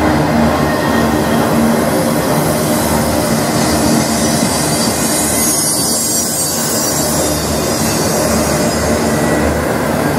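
Autorack freight cars rolling past, a steady loud rumble of steel wheels on the rails, with a high-pitched wheel squeal in the middle.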